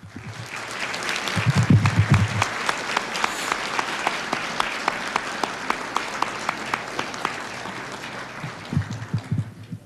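An audience applauding, many people clapping. It swells over the first couple of seconds, holds steady with sharp single claps standing out, and dies away near the end.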